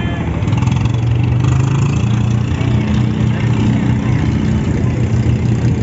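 Boat engine running steadily at a low, even pitch.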